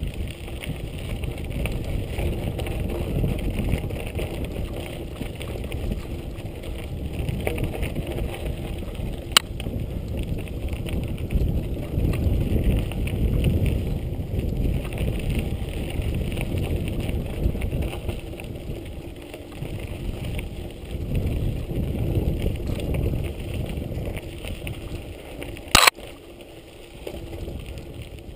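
Giant Boulder 0 29er mountain bike riding over a rough dirt singletrack: continuous tyre rumble and frame rattle that rises and falls with the terrain, with wind on the microphone. There are two sharp knocks, a light one about nine seconds in and a louder one near the end.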